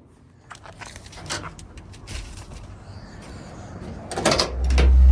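Keys and car-door handling clicks and knocks, then, about four and a half seconds in, a car engine starts and runs with a loud, low drone.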